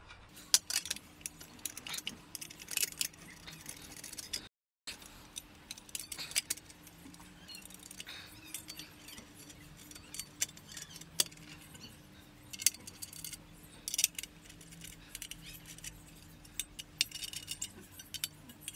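Small metal fasteners and an aluminium bracket clinking and jangling as bolts are fitted by hand into riv nuts, with irregular short clicks and rattles throughout. A faint steady hum runs underneath.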